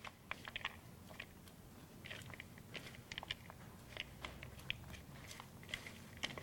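Silicone spatula stirring chocolate-caramel-coated popcorn and cashews in a plastic bowl: faint, irregular crunching and clicking as the coated pieces are tossed.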